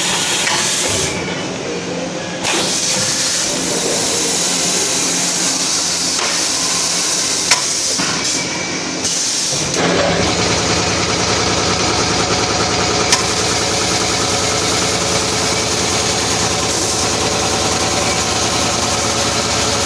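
Vertical airless packaging machine running, with a steady hiss of air. About ten seconds in, a motor starts and keeps running with a low, even hum.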